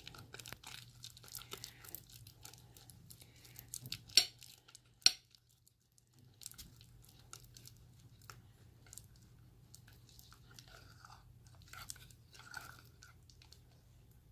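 Floam (slime mixed with foam beads) being stirred in a bowl: a faint, steady run of sticky crackles and squelches, with two sharper clicks about four and five seconds in.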